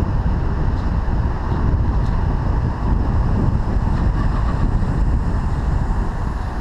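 Low rumble of a car driving slowly, mixed with wind buffeting on the microphone of a car-mounted GoPro Hero 3.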